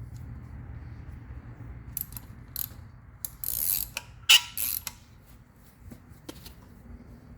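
Hand tools working on metal lug nuts: a few sharp metallic clicks and short scrapes, like a ratchet being worked, with one loud click about four seconds in, over a steady low hum.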